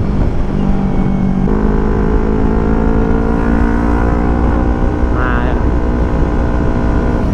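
Yamaha R25 parallel-twin engine running under way at a steady road speed, with wind rumble on the microphone. The engine note shifts about a second and a half in.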